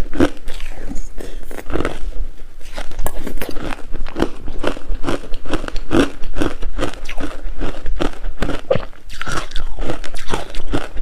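Coarse-grained crunchy ice being bitten and chewed: a steady run of crisp crunches, a few each second.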